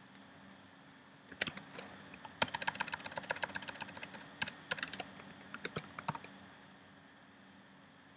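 Typing on a computer keyboard: a quick run of key clicks lasting about five seconds, densest in the middle, that stops a little before the end, over a faint steady low hum.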